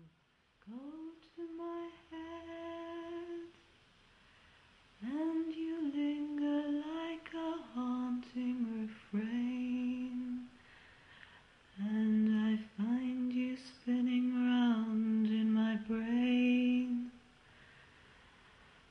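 A woman humming a slow, wordless melody unaccompanied, in three long phrases with short pauses between them.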